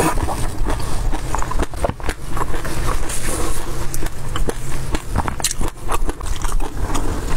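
Close-miked chewing and mouth sounds of a person eating sesame passion fruit yogurt, with many small clicks and crackles, and a ladle scraping and knocking in a glass bowl as it scoops more.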